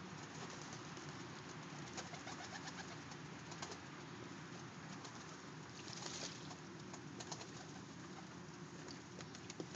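Pigeons bathing in a shallow tub of water: scattered small splashes and wing flicks, with a louder splash about six seconds in, over pigeons cooing.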